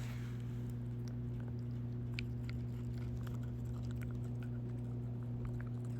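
A dog chewing a treat, with scattered small crunches and clicks over a steady low hum.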